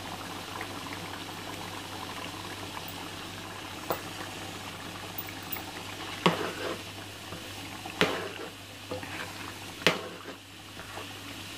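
Pot of mutton curry bubbling at a simmer, stirred with a metal ladle that knocks sharply against the pot four times, the later knocks about two seconds apart.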